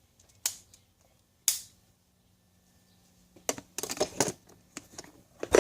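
Hand tools being handled and knocked together: two sharp clicks about a second apart, then a quick run of clattering clicks from about three and a half seconds in.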